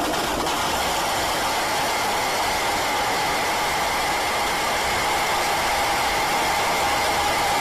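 Loud, steady static-like noise with a faint high whine held through it.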